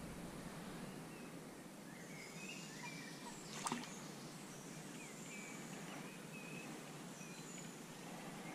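Faint, steady riverside background with small birds chirping now and then, and one short sharp click about three and a half seconds in.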